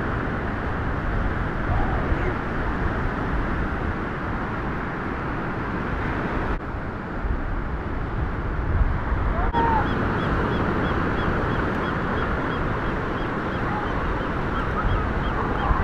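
Seals and sea lions calling with short honking barks over a steady wash of surf and wind. From about ten seconds in, a quick, evenly repeating series of high chirps joins them.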